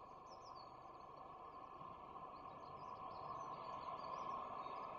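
Small birds chirping in short high calls, a few near the start and a longer run in the second half, over a steady faint background hiss.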